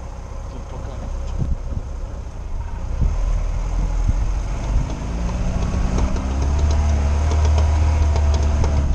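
Lada Niva's engine heard from inside the cabin while driving off-road, running at low revs and then rising in pitch and getting louder about five to six seconds in as it takes more throttle.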